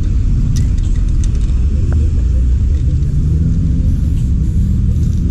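A steady, loud low rumble, with a few faint clicks in the first second or so.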